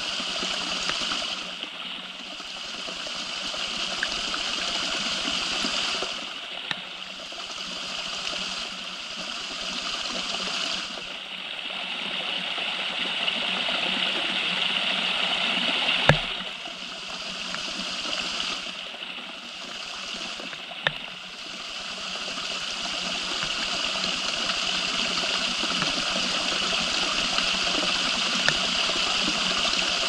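Water dripping from a rock face: a handful of sharp single drips, the loudest about halfway through, over a steady rush of falling water that swells and eases every few seconds.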